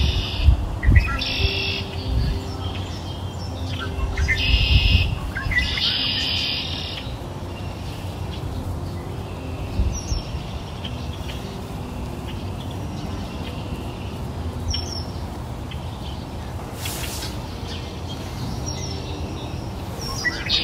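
Birds chirping in short, dense bursts, several in quick succession over the first seven seconds and another near the end, over a faint steady low background.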